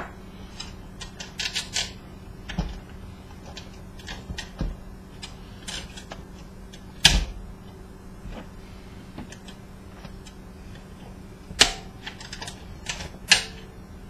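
Irregular clicks and clinks of metal pliers working at a projector lamp's metal housing and being set down on a workbench, with a few louder clacks spread through, over a faint steady hum.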